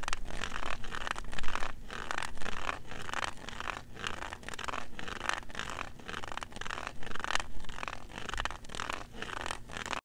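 A white cane's tip scraping across a cement sidewalk in steady, repeated sweeps, about three strokes a second.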